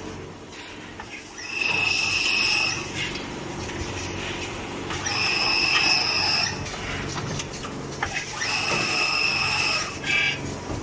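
Automated vape cartridge assembly machinery running with a constant hum. Over it, a steady high-pitched tone comes on three times, each lasting about a second and a half, roughly every three and a half seconds, with a short extra blip near the end.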